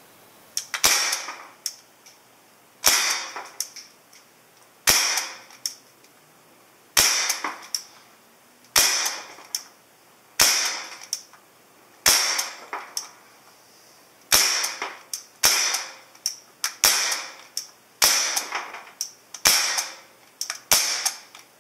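Benjamin Wildfire .177 semi-automatic PCP air rifle firing shot after shot, about a dozen sharp pops spaced one to two seconds apart, each dying away quickly in a small room.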